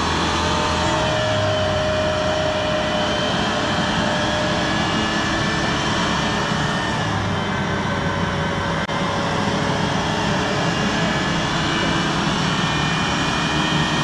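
A vehicle winch whining steadily under heavy load together with a Mitsubishi Pajero's running engine, as the winch hauls the SUV and its camper trailer uphill.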